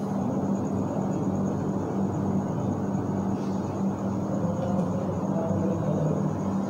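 Steady room noise with a low, even hum and no distinct events.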